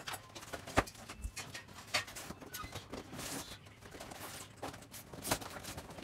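Cardboard packaging of a soundbar box being opened and handled: irregular knocks, scrapes and rustles, with sharper knocks just under a second in and a little after five seconds.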